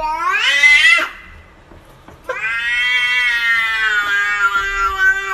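Domestic cat yowling: a rising call that breaks off about a second in, then after a short pause a long drawn-out yowl held for about three seconds.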